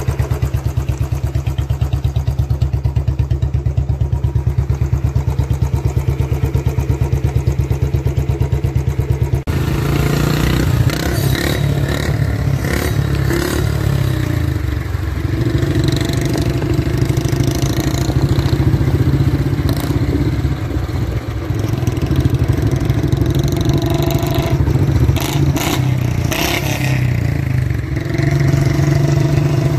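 Royal Enfield Bullet 350's single-cylinder engine exhausting through a short, unfiltered bottle silencer with a switch-operated valve. For the first third it idles with an even beat. After an abrupt change the bike is ridden with the revs rising and falling, first with the exhaust valve closed, then with it open near the end.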